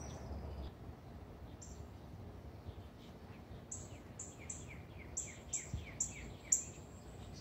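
A songbird singing: a run of about eight quick, high notes, each sweeping downward, starting about three and a half seconds in, over a low background rumble.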